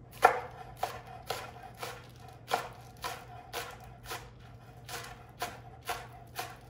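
Kitchen knife chopping scallions on a wooden cutting board: a steady run of sharp knife strikes, about two a second.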